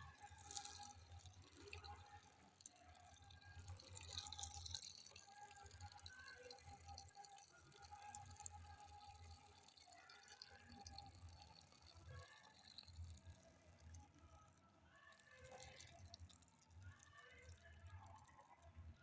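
Faint dripping of liquid as the curdled mixture drains through a sieve cloth.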